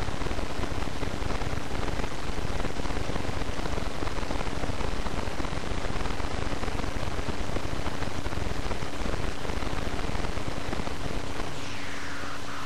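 Steady hiss and rumble with a faint steady hum. Near the end a faint whine falls in pitch.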